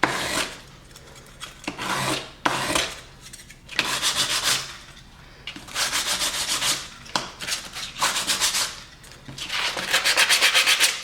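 Hand file rasping a bevel onto the edge of a cut blast-gate piece, in a series of long scraping strokes, about one every second or so.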